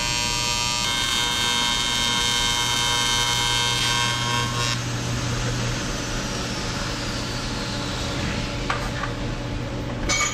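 Welding arc on a cracked engine oil pan, giving a steady buzz that stops sharply about five seconds in. A low, steady hum carries on after it.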